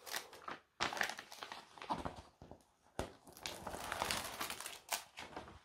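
Paper release sheet being peeled back and handled on a diamond painting canvas with double-sided-tape adhesive: irregular rustling and crinkling, with a sharper tick about three seconds in.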